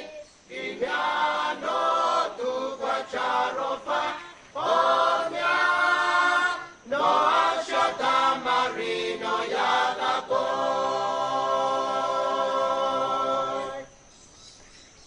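Group of Vanuatu villagers singing a traditional chant together without instruments, in short phrases broken by brief pauses. The last phrase is one long held chord that stops about a second before the end.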